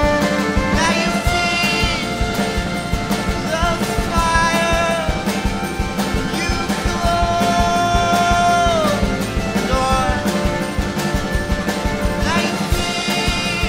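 Live band playing an instrumental stretch of a rock song, with a steady beat under a lead line of long held notes that bend in pitch.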